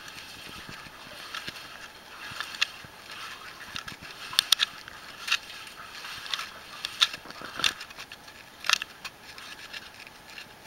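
Wellington boots wading through shallow flood water in a mine passage: irregular splashes and sloshes, one every half second to a second.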